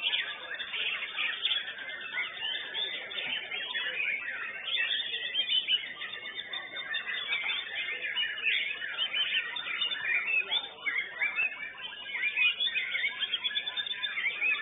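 White-rumped shama (murai batu) song: a dense, unbroken run of fast, varied whistles and chirps.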